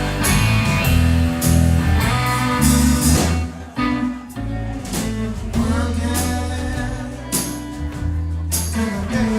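Blues-rock band playing: guitar over a steady bass line and drums with regular cymbal hits.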